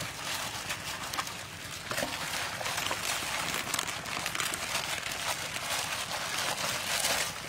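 Plastic bags worn as gloves crinkling and rustling as hands toss raw chicken pieces in flour in a metal bowl, dredging them for frying, with soft scattered clicks from the bowl.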